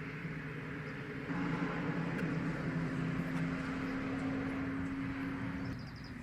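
An engine running steadily with a low hum, growing louder about a second in and easing off near the end. A bird gives a quick run of high chirps just before the end.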